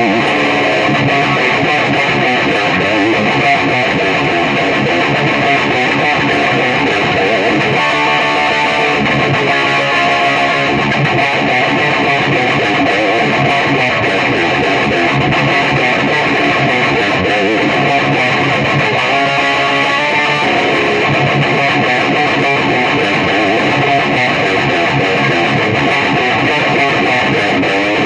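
Electric guitar played continuously through a Peavey Bandit 112, a solid-state combo amplifier with one 12-inch speaker, at a steady, loud level.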